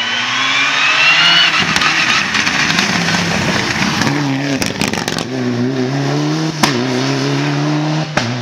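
Mitsubishi Lancer Evolution IX rally car engine under hard driving. It revs up with a rising pitch, runs rough and uneven for a couple of seconds, then holds a steadier, wavering note, with two sharp cracks near the end.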